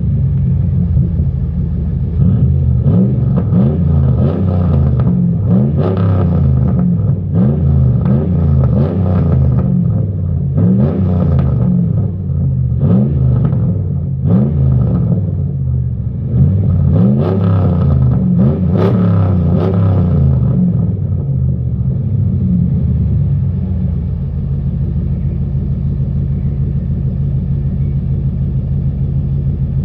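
A 5.7 HEMI V8 through a straight-piped 3-inch stainless side exhaust being blipped over and over, its pitch rising and falling quickly with each rev. About two-thirds of the way through the revs stop and the engine settles into a steady, loud idle.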